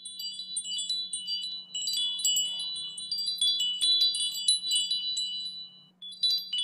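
Chimes tinkling: many bright, high ringing notes overlapping one another over a faint steady low hum. They drop away briefly about six seconds in and then start again.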